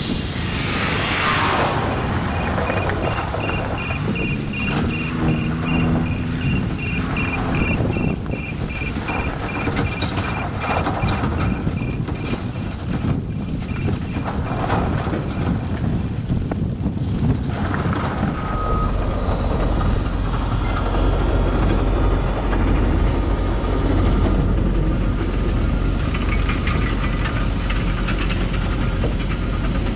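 Driving noise from a GMC Safari van towing a heavily loaded trailer: wind on the microphone, tyre and road noise, and scattered knocks and rattles. Roughly two-thirds of the way through, a deeper, steadier rumble takes over.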